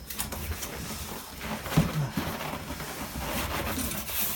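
Cardboard and packing material rustling and scraping as a heavy boxed embroidery sewing machine is shifted out of its box, with a knock a little under two seconds in and a short strained grunt just after.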